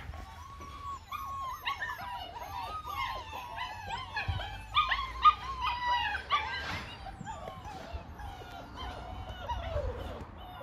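A 6½-week-old Belgian Malinois puppy whining in many short rising-and-falling calls in quick succession, thinning to a few fainter, falling whines over the last few seconds.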